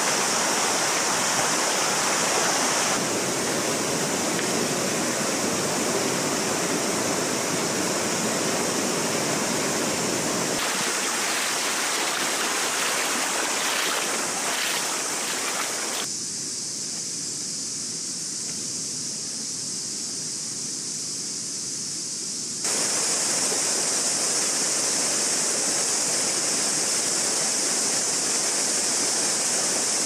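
Loud chorus of cicadas, a steady high-pitched shrill, over a broad rushing noise. The mix changes abruptly several times, and is quieter and thinner for several seconds past the middle.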